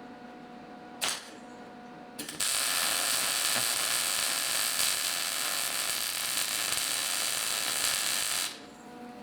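A handheld gas torch: a click about a second in, a short crackle, then the flame hisses steadily for about six seconds and cuts off suddenly, as it heats a seized broken bolt to free it.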